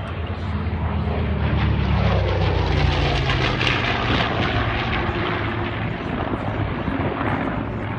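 Grumman F7F Tigercat's twin Pratt & Whitney R-2800 radial engines flying by. The drone swells to its loudest a couple of seconds in, and the engine pitch drops as the plane passes.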